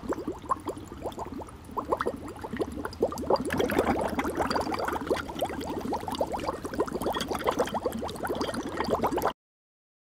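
Liquid bubbling and gurgling, like a boiling flask, with many quick bubbles at once. It grows louder about three and a half seconds in and cuts off suddenly near the end.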